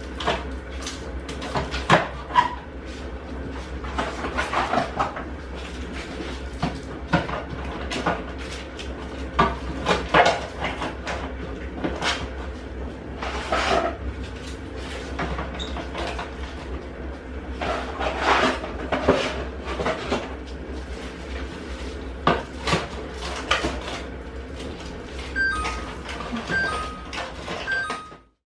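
Household items being handled and put away in kitchen cupboards: irregular knocks, clicks and clatters of cupboard doors and objects being set down, over a steady low hum. A few short high tones sound near the end.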